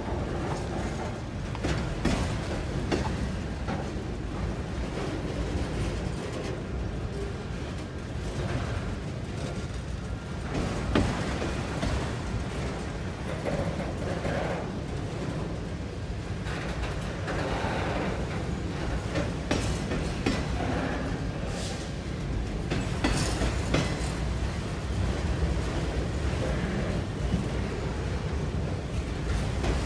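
A freight train of autorack cars rolling past: a steady low rumble of steel wheels on rail, with scattered clicks and knocks from the wheels and couplers.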